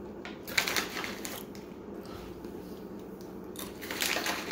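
Crunchy dried banana pieces from peanut butter and banana trail mix being chewed: two spells of crisp crackling crunches, one in the first second and a half and another about four seconds in, over a steady low background hum.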